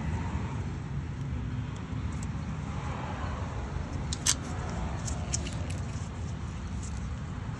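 Steady low rumble, with one sharp click a little past four seconds in and a few lighter clicks about a second later, as parts of a Predator 212cc engine are handled with a gloved hand.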